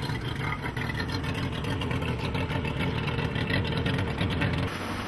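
Bass boat outboard motors running at low speed, a steady low engine drone. Near the end the drone drops away and wind and rushing water take over.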